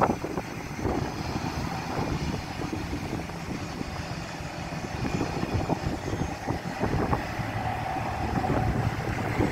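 Jet airliner engines at taxi power: a steady low rumble with a faint whine that comes up in the second half.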